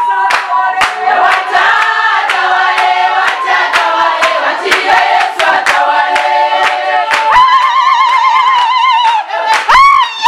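A congregation singing a praise song together, with steady hand clapping keeping the beat. In the second half a single high wavering voice rides over the group, and near the end a loud cry sweeps up and down.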